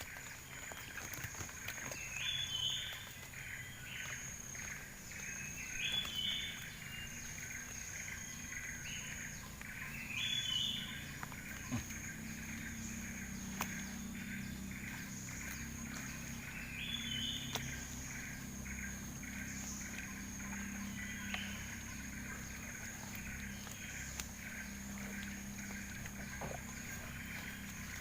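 Outdoor animal chorus: a fast pulsing mass of calls, a steady high buzz, and a louder chirping call repeated every few seconds. A low steady hum comes in about twelve seconds in.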